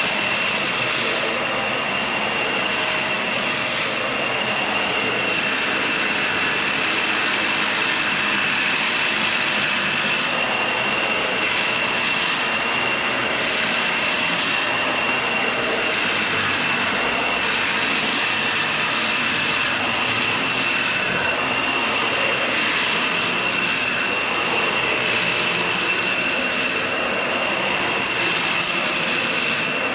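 Vacuum cleaner running steadily over a shaggy rug, a constant high whine over its rushing noise, with a brief click near the end.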